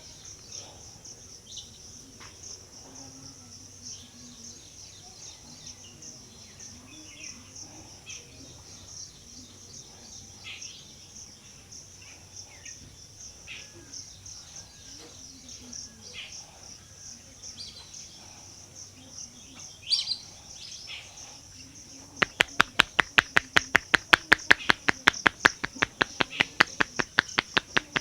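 Hands striking a head in quick, even slaps during an Indian barber's percussive head massage, starting about three quarters of the way in at roughly eight a second. Before that, a steady high insect drone with scattered bird chirps.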